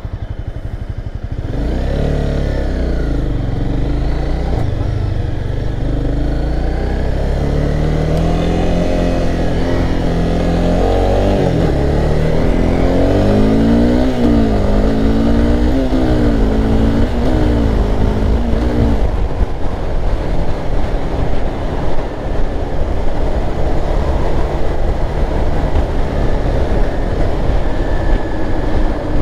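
Honda CBR300R single-cylinder engine pulling away and accelerating hard through the gears. Its note climbs and drops back at each of several upshifts, then settles into a steady cruise at road speed with wind noise.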